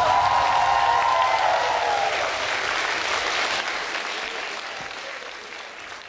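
Audience applauding, fading out steadily. A held high tone sounds over it for about the first two seconds.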